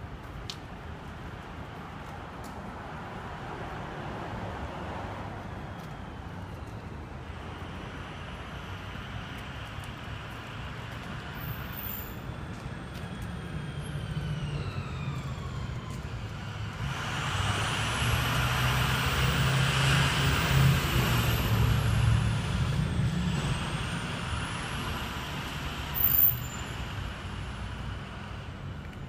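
City street traffic, with a heavy vehicle's engine passing close: it grows loudest for several seconds a little past the middle, then fades. A short, sharp sound comes near the end.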